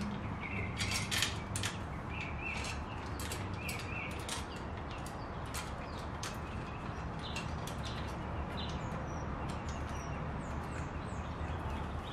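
Bicycle chain links clicking and rattling as a new chain is handled and laid on the sprockets, dense at first and then sparser. Birds chirp in the background.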